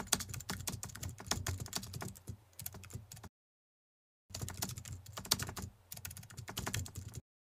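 Rapid computer-keyboard typing clicks, a typing sound effect, in two runs broken by a pause of about a second a little over three seconds in; the clicking stops shortly before the end.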